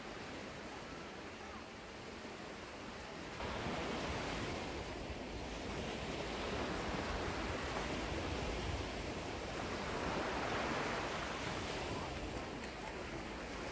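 Small waves breaking and washing onto a beach, with wind on the microphone. The surf gets louder about three seconds in.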